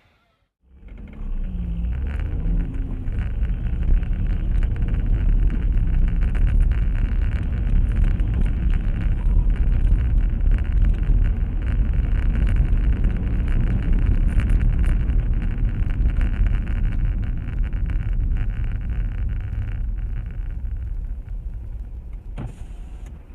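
Car driving, picked up by a dashcam's microphone: a steady low rumble of engine and road noise that starts after a brief silence about a second in and eases off near the end.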